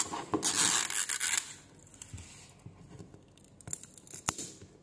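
Plastic wrapper of a toy ball ripping as its pull-tab zipper strip is torn around it: a rasping rip for about a second and a half, then faint crinkles and a sharp click near the end.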